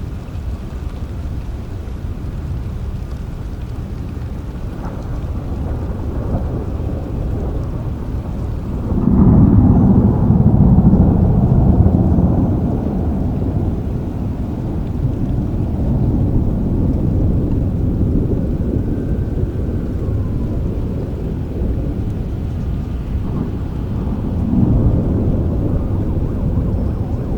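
Steady rain with low rolling thunder. A louder roll of thunder comes about nine seconds in and lasts about four seconds, and a smaller one comes near the end.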